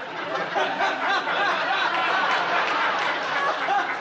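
Studio audience laughing, with a man laughing close by.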